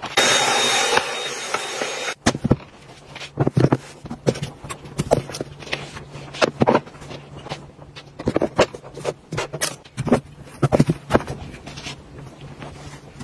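A rushing hiss for about the first two seconds. Then a long, uneven run of light taps, clicks and knocks as velvet jewelry boxes and trays are set into a wooden drawer and pieces of jewelry are laid into the tray compartments.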